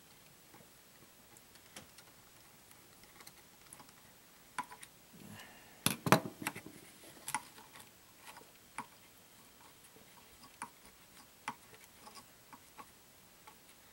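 Scattered light clicks and taps of small screws and plastic chassis parts on a Traxxas Rustler 4x4 RC truck being handled, with a louder cluster of knocks about six seconds in.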